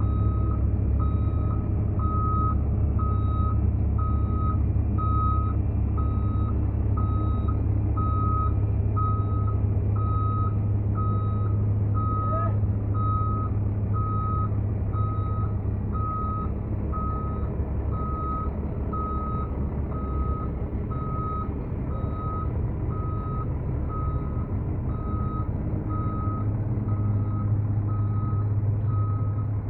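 Heavy-equipment reversing alarm beeping in an even, unbroken rhythm over the steady low drone of a running diesel engine.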